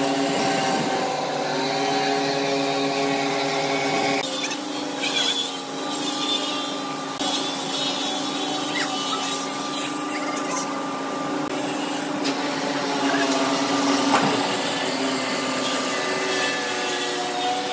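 Steady droning hum of workshop machinery running, its pitch shifting slightly about four seconds in, with a few short knocks of wood being handled.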